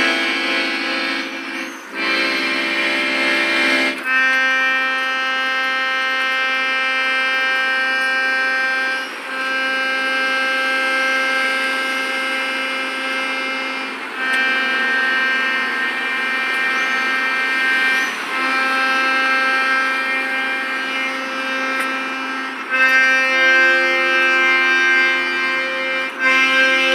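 Small red piano accordion playing long held chords, moving to a new chord every four to five seconds.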